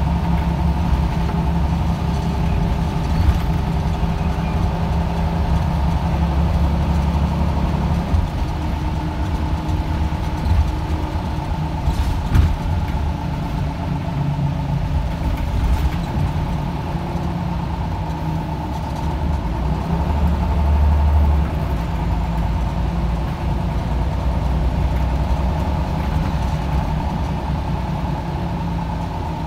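Single-deck bus driving, heard from inside the passenger cabin: a steady diesel engine hum with a constant whine over it. The engine note shifts about eight seconds in and swells briefly near the end, with a few short knocks and rattles.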